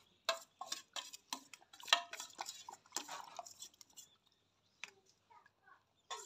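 A metal spoon scraping and clinking against a steel bowl as sweet rice is scooped out: a quick run of clinks and scrapes that thins out after about four seconds, with one more click near five seconds.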